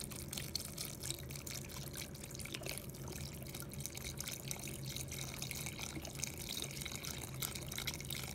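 Tap water running into a stainless steel bowl of soaking bread pieces, a steady splashing patter.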